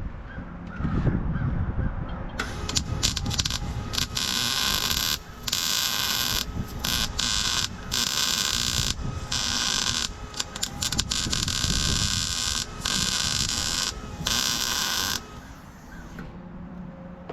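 Electric welding arc crackling and hissing in about eight short runs of one to two seconds each, starting about two seconds in and stopping a couple of seconds before the end: tack welds being laid on steel.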